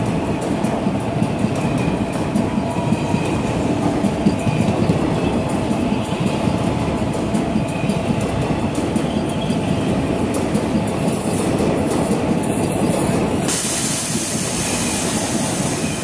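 Passenger train coaches rolling past on the next track, their wheels clicking and clattering over the rail joints over a steady rumble. About three-quarters of the way through, the clatter gives way abruptly to a steadier hiss.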